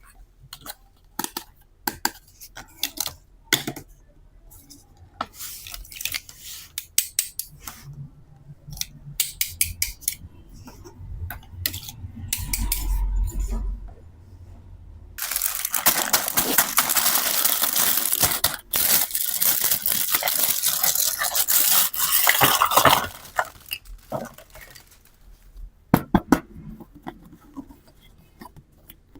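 Small plastic toy pieces clicking, tapping and clattering as they are handled, with a dense stretch of rattling and rustling for about eight seconds in the middle.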